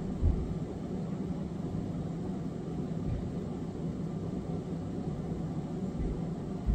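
A steady low rumbling hum in the background, with two brief low thumps, one about a quarter second in and one near the end.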